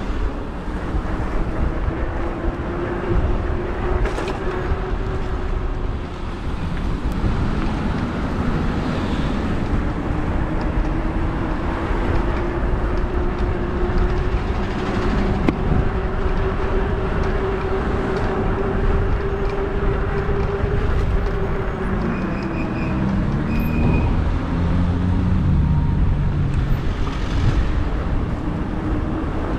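E-bike motor whining as the bike rides along, its pitch slowly rising and falling with speed, over a steady rush of wind and road noise. Two short high beeps sound about two-thirds of the way through.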